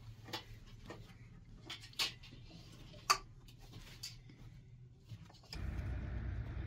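Scattered light clicks and taps of people moving about with metal bowls in a small cave room, over a low steady hum. About five and a half seconds in, this gives way abruptly to a louder steady rushing noise.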